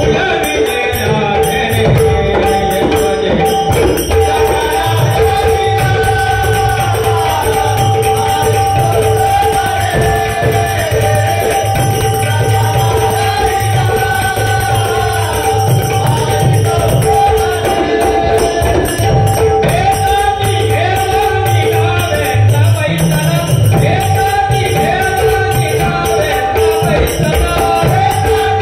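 A group of men singing a Marathi devotional bhajan over a steady two-note drone, with hand cymbals (taal) jingling in rhythm.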